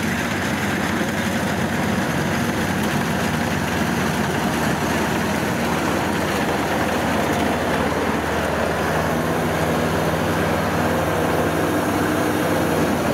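Kubota DC70 rice combine harvester, fitted with a larger engine taken from a 100-series machine, running steadily under load as it cuts and threshes rice: a constant engine drone mixed with the clatter of the cutter and threshing drum.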